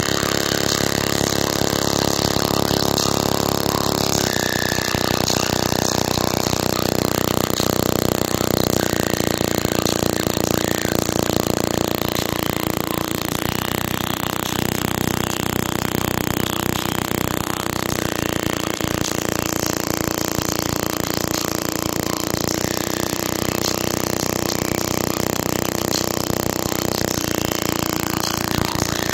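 A bare JBL Flip 3 woofer, out of its enclosure and driven by a JBL Flip 5 amplifier, playing loud bass at extreme cone excursion: a steady, distorted buzzing drone that sounds almost like an engine and changes pitch about four seconds in.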